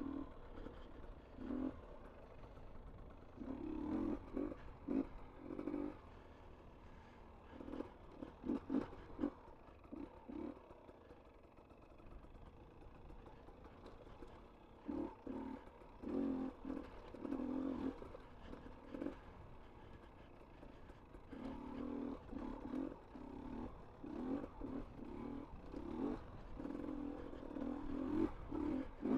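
GasGas EC250 enduro motorcycle engine revving up and down in short, uneven bursts with quieter spells between, heard muffled along with the rider's heavy breathing on the microphone.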